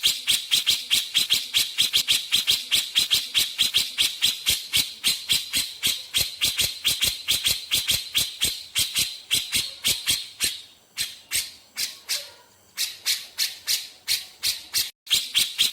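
A cucak jenggot (grey-cheeked bulbul) singing a fast, rattling series of sharp repeated notes, about six a second, the rapid 'nembak' delivery that bird keepers prize, with a couple of brief pauses in the second half.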